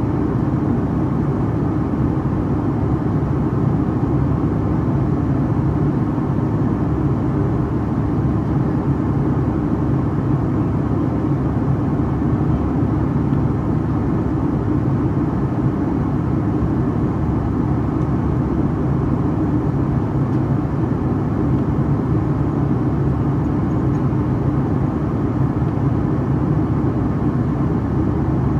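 Boeing 757-300 cabin noise in flight from a seat over the wing: the turbofan engines and airflow make a steady low drone that does not change.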